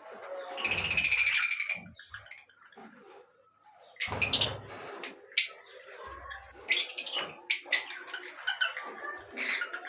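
Birds calling. A drawn-out call of about a second comes near the start, and after a short lull a busy run of short, sharp chirps and calls follows from about four seconds in.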